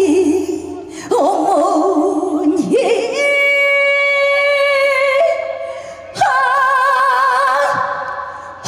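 A woman singing a Korean trot song live, holding two long notes with wide vibrato.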